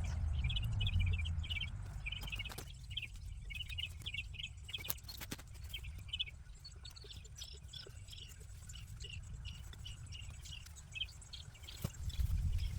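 Outdoor garden ambience: clusters of quick high chirps repeat throughout over a low rumble, with a few sharp clicks.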